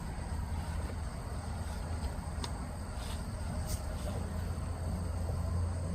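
Outdoor ambience: a steady low rumble with faint insect chirring and a couple of faint ticks.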